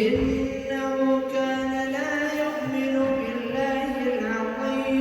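A man reciting the Quran in melodic tajwid style, holding long drawn-out vowels on steady notes that step up and down in pitch.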